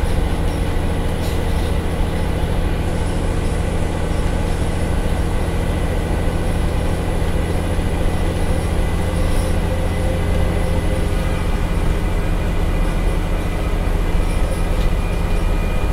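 Scania CN94UB Omnicity bus's rear-mounted diesel engine pulling hard at a steady pitch, heard from inside the passenger saloon along with road and body noise.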